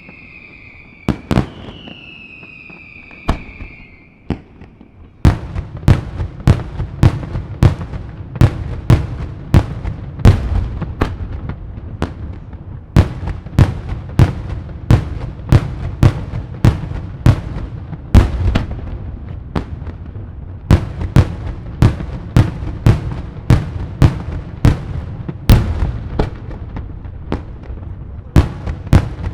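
Daylight fireworks display: whistles falling slightly in pitch, with a few sharp bangs, over the first four seconds, then a fast barrage of loud aerial salute bangs, about two a second, over a low rolling rumble.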